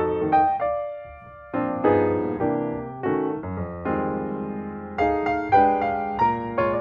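Background piano music with a gentle melody; the notes thin out briefly about a second in.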